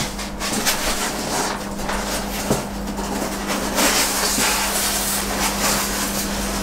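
Packaging rustling and rubbing in uneven bursts, with a few light knocks, as a collectible statue's figure is lifted out of its box, over a steady low hum.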